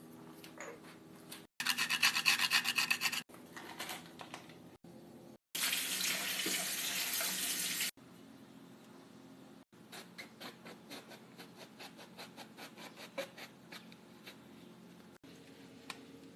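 Separate kitchen sounds split by hard cuts: first a brisk rhythmic rubbing, then a couple of seconds of tap water running steadily, then a long run of quick light taps at several a second.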